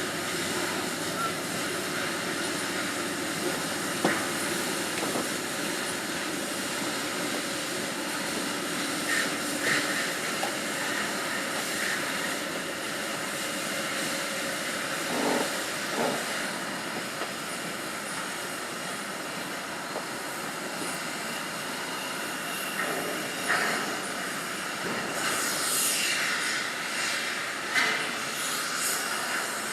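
Shipyard ambience: a steady industrial hiss and hum with scattered metal knocks and clanks. Near the end there is a run of high-pitched metallic screeching and clanking.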